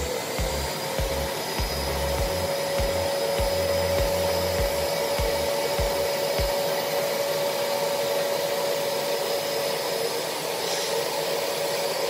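Würth SEG 10-2 spray-extraction vacuum cleaner running with a steady motor whine and rushing suction noise as its upholstery nozzle is drawn over a wet fabric seat.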